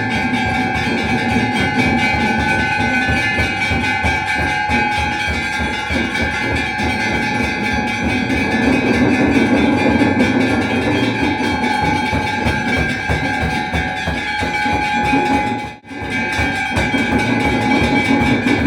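Temple aarti: bells and drums struck rapidly and without pause, with steady ringing tones held over them. The sound drops out for a moment about three-quarters of the way through, then resumes.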